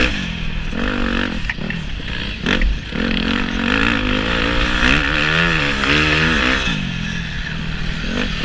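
Dirt bike engine being ridden hard, its revs rising and falling again and again as the throttle is worked, heard close up from the rider's helmet camera.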